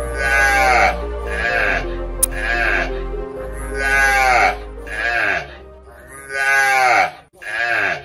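Livestock bleating: a series of short calls, each falling in pitch, coming in groups of two or three, over soft background music.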